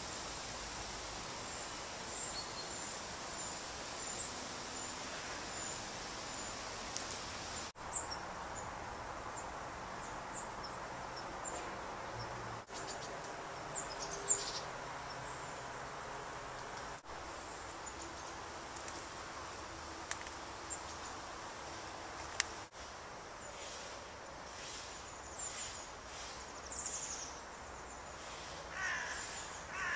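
Outdoor ambience: a steady background hiss with small birds calling now and then, including a run of about seven short, evenly spaced high chirps a few seconds in and a falling call near the end.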